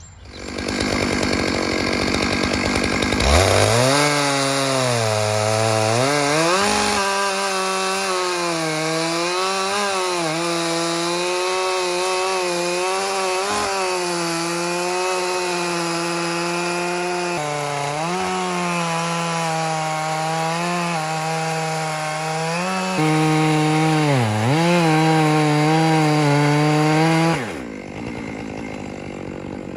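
Two-stroke chainsaw in a chainsaw mill ripping lengthwise through a pine log. The engine is held at high revs under load, and its pitch wavers and dips now and then as the cut loads it. The note drops away suddenly near the end.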